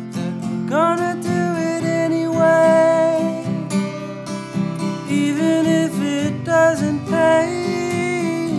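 Man singing with a strummed acoustic guitar, his voice sliding up into a held note about a second in.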